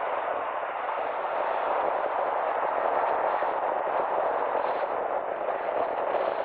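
Steady rushing road noise from a car driving along a city street.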